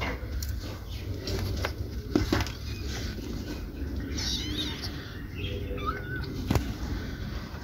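A mother cat and her kittens eating shredded chicken off a foam tray: scattered soft clicks and taps, with a couple of short, faint kitten mews near the middle.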